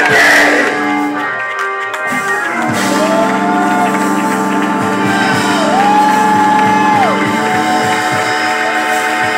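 Church band music: sustained chords over a steady drum beat. A lead line slides up about three seconds in, then slides up again and holds a long note around the six-second mark.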